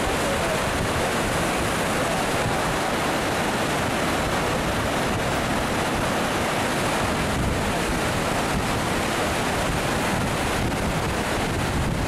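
Steady rush of Lower Yosemite Fall and the white-water creek tumbling over boulders below it, with wind buffeting the microphone.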